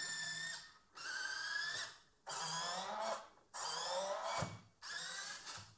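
Hobby servo motors (11 kg and 25 kg) in a 3D-printed robotic finger whining as they drive the finger's joints. The whine comes in about five separate bursts of roughly a second each, with short pauses between them, its pitch shifting slightly within each burst.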